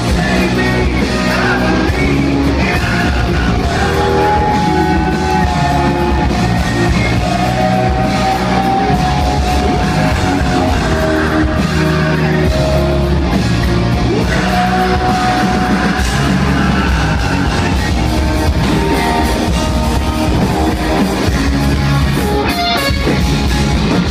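Live rock band playing: a male lead singer holding long sung notes over electric guitars, bass and drums, loud and steady throughout.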